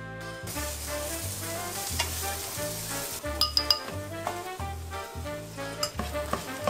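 Egg mixture frying and sizzling steadily in a nonstick pan as it is stirred with a spatula, starting about half a second in, with a few light utensil clinks near the middle. Background music with a bass line plays throughout.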